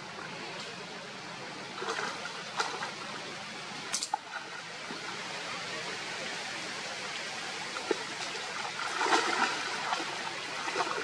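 A steady outdoor hiss, broken by short rustles and snaps of leaves and branches at intervals, loudest a little after nine seconds, as a macaque climbs through a small tree.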